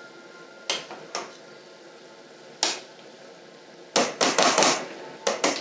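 A cooking utensil knocking against a pot while a large batch of noodles is stirred and tossed: a few single knocks, then a quick run of clattering knocks about four seconds in.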